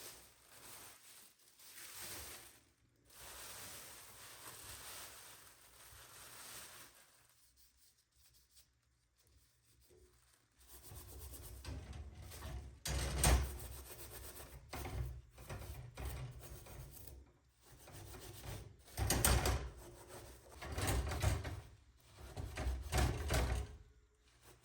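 Scrubbing a surface: soft rubbing at first, then, after a brief lull, several louder spells of back-and-forth rubbing strokes.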